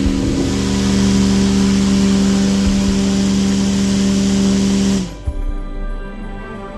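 Homemade table fan's motor running with a steady hum and a rush of air, which cuts off suddenly about five seconds in. Music follows.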